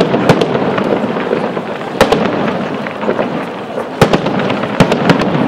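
Aerial firework shells bursting overhead: about five sharp bangs at uneven intervals over a steady background din.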